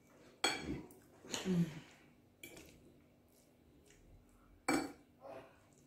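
Close-up eating sounds from a plate of noodles: about five short slurps and chews, the loudest about half a second in and again near the end.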